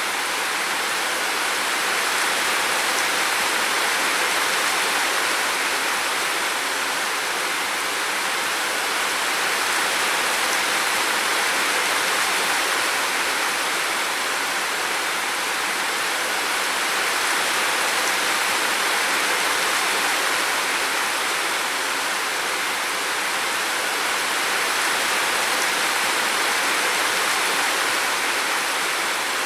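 Steady rushing water, an even dense hiss with slow, gentle swells in loudness.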